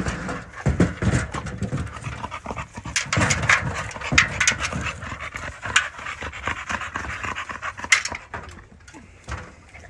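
A dog panting in quick, noisy breaths, dying down near the end.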